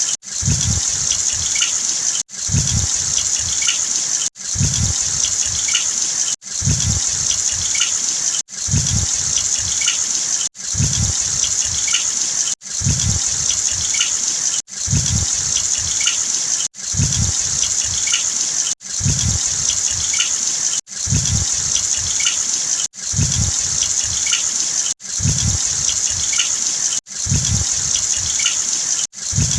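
Heavy rain with water gushing, a steady hiss. It drops out and starts again about every two seconds, the same short stretch repeating over and over.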